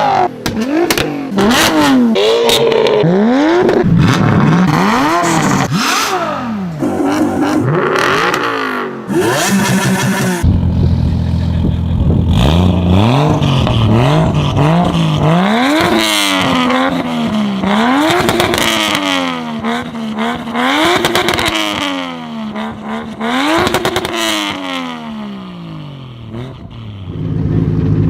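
Car engines with modified aftermarket exhausts revving again and again, their note climbing and falling with each stab of the throttle. Just after ten seconds in, one holds a steady low note for a second or two before revving up again.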